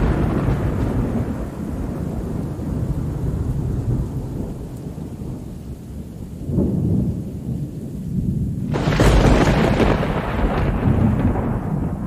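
Loud, low rumbling and rushing noise of small fish and water spilling from a hauled trawl net's codend onto a wooden deck, with a sudden louder surge about nine seconds in.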